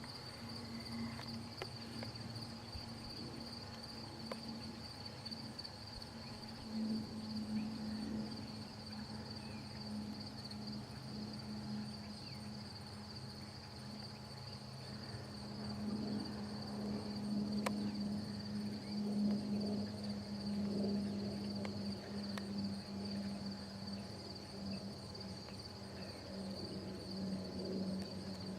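Insects trilling in a steady, high, finely pulsing chorus over a constant low hum.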